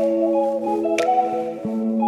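Background music: a pitched melody over a held low note, with a sharp percussion hit about a second in.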